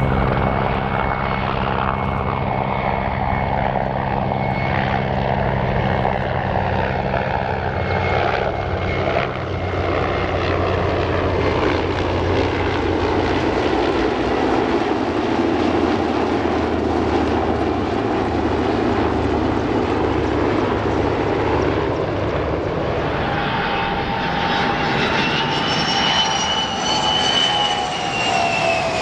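Aircraft engines running loud and steady, with a whining tone that appears in the last few seconds and falls steadily in pitch.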